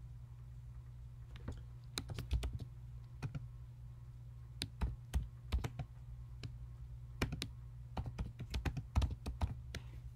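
Typing on a computer keyboard: irregular bursts of key clicks with short pauses between them, over a steady low hum.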